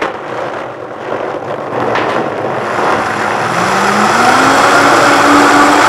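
Vitamix blender switched on, its motor running and churning fruit with soaked flaxseed and water into a purée. The sound starts abruptly, grows steadily louder, and the motor's pitch climbs about three and a half seconds in as it speeds up.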